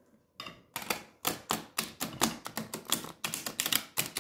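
A tarot deck being riffle-shuffled on a table: a quick, irregular run of card clicks and slaps that starts about half a second in.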